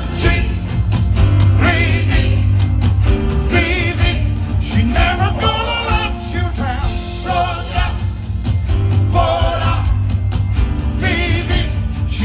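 Live rock band playing, with heavy bass and drums under a voice singing long wavering lines.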